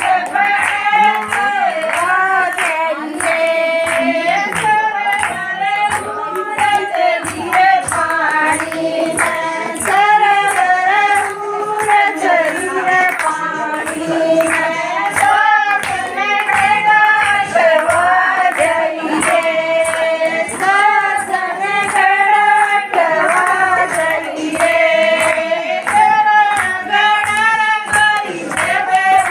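A group of women singing a Haryanvi folk song together, over a steady beat of hand clapping.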